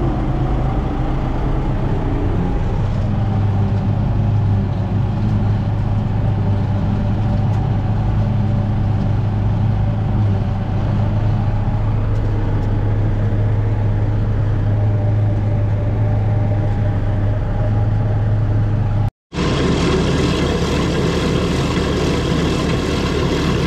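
Tractor engine running steadily under load, heard from inside the cab, with a trailed forage harvester working alongside as it blows chopped grass into the trailer. A short cut just after 19 seconds breaks it, and a different, brighter machine noise follows.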